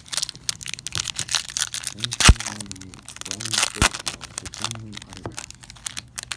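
Crinkling and tearing of baseball-card pack wrappers being handled and ripped open, with two sharper cracks a little over two seconds and almost four seconds in.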